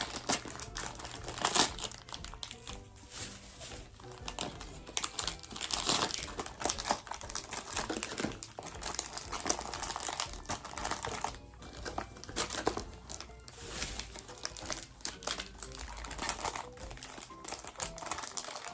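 Snack packaging crinkling and crackling in irregular bursts as a pack of lemon cream sandwich cookies is opened and the small packs are handled.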